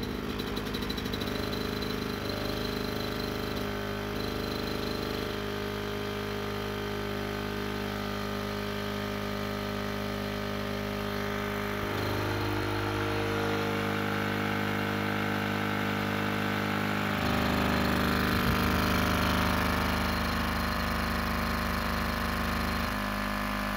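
Fimag generator's petrol engine running steadily and smoothly under the load of a bank of light bulbs, its governor holding the speed. The tone shifts abruptly a few times.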